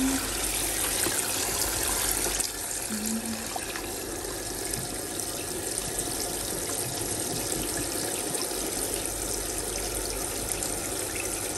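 Water running into the tub of a portable folding washing machine as it fills: a steady rush of running water that drops a little in level about two and a half seconds in.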